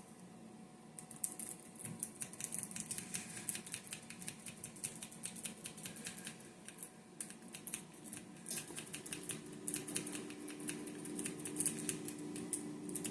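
Wave rake worked in and out of a Master Lock padlock's keyway: rapid, irregular small metallic clicks and scrapes as the pick rakes over the pin tumblers under tension.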